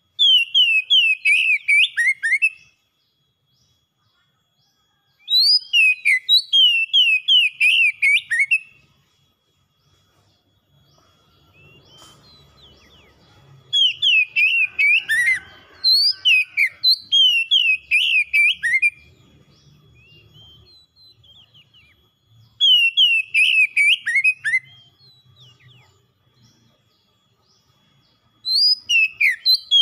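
Oriental magpie-robin singing loudly. Bursts of quick, descending whistled notes last two to three seconds each, with pauses of a few seconds between them.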